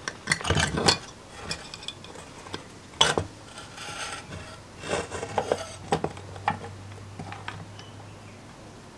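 Small metal clicks and scrapes as crimped spade connectors are worked off the terminals of a sandwich toaster's thermostat and wiring. The loudest cluster comes about half a second in and a sharp click at three seconds, with more scattered clicks around five to six seconds.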